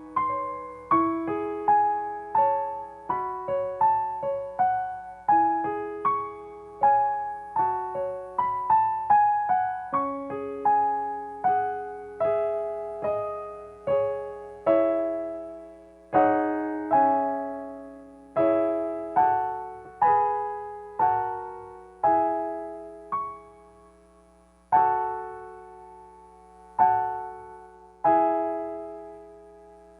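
Solo piano playing slow, gentle improvised music: single notes and chords, each struck and left to ring and fade. The pace slows in the last few seconds, with chords about two seconds apart.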